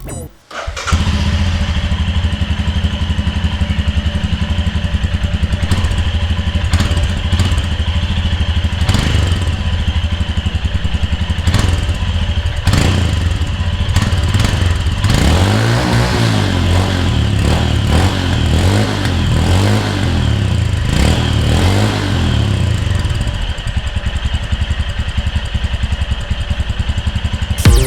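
Royal Enfield Scram 411's 411cc single-cylinder, air-cooled four-stroke engine running, with the revs rising and falling in short blips through the middle of the stretch before settling back.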